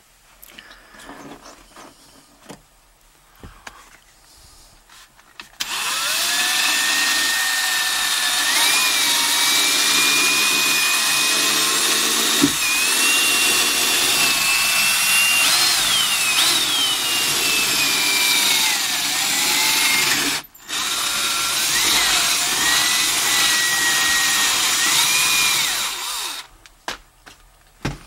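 Cordless drill motor whining for about twenty seconds, its pitch rising and falling with the load, with a brief stop about two-thirds of the way through; it is running a seat-belt anchor bolt down through the carpet into the car floor. Faint handling clicks come before the drill starts.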